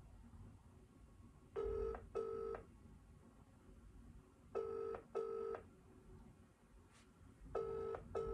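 A phone's ringing tone heard through its loudspeaker: the British double ring, two short buzzes, repeating three times about every three seconds. The line is ringing and has not yet been answered.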